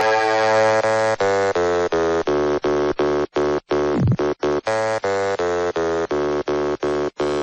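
Electronic dance music intro: a buzzy synthesizer chord held, then chopped into short repeated stabs about three a second from about a second in, with a falling pitch sweep about four seconds in.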